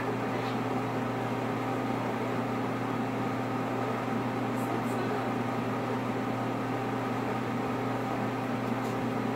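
Steady hum and hiss of a running household motor or fan, unchanging throughout.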